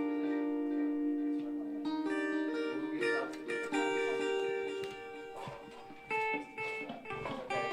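Guitar music: plucked notes and long held notes, dipping quieter for a moment about two-thirds of the way through.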